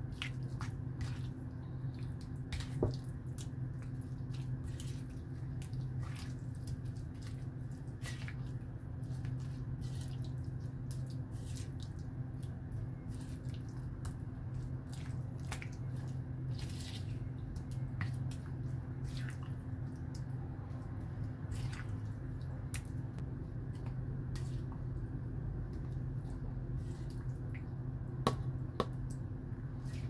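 Wet squelching and small clicks of a spoon stirring raw chicken wings through thick, moist curry spice paste in a stone mortar, with a few sharper clicks near the end. A steady low hum runs underneath.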